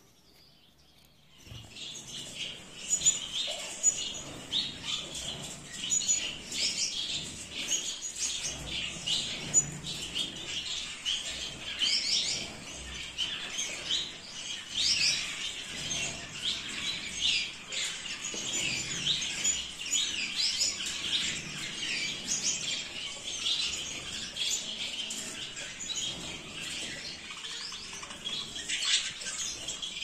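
Gouldian finches calling: a dense, unbroken run of short, high chirps from several birds, starting about a second and a half in.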